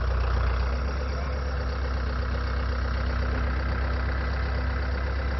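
Diesel engine of a CAT compact track loader running steadily at a low idle, an even hum with no revving.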